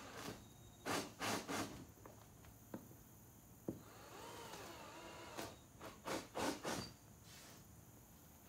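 Short scraping and rubbing strokes on a thin plywood panel, about three quick strokes about a second in and a longer run of them in the second half.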